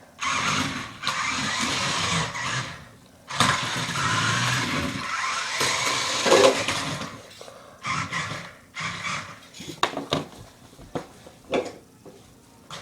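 Remote-control car's motor and wheels running in bursts as it is driven: two long runs of a few seconds each, then several short bursts of throttle near the end.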